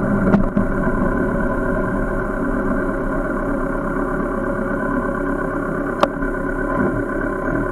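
Motorcycle engine idling steadily while stopped, heard through a bike-mounted camera, with two sharp clicks, one about half a second in and another near six seconds in.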